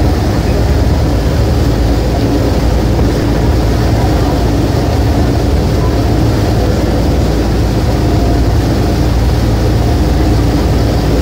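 River boat's engine running steadily with a deep low rumble, under a constant rush of wind and water.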